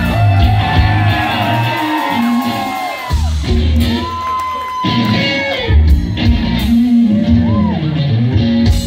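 Live rock band playing loudly: electric guitars, bass and drums, with long bending sustained notes and a voice singing and shouting over them.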